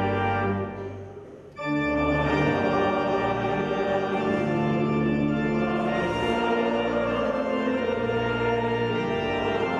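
Organ playing long held chords; the sound fades away about a second in, and a new chord comes in loudly about a second and a half in and sustains.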